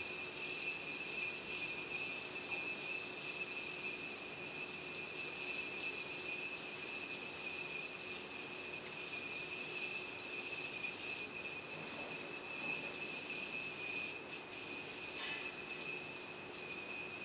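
Steady high-pitched insect chorus with one constant shrill tone, and a faint low hum underneath.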